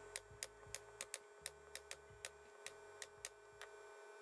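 Pneumatic staple gun firing staples through fabric into a wooden board in quick succession, about three sharp clicks a second, stopping a little before the end. A faint steady hum runs underneath.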